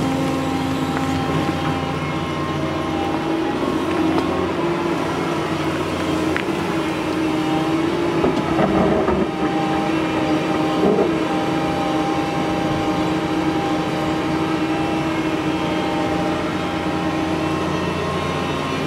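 Doosan DX225LCA crawler excavator running at working revs while it digs and swings, a steady diesel hum with a whine over it. The whine wavers in pitch about halfway through, then settles again.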